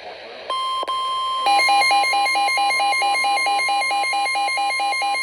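NOAA Weather Radio warning alarm tone: a steady single tone starts about half a second in, breaking off for a moment just after. About a second later a fast, repeating two-pitch alarm beep joins it, and both sound together until the end.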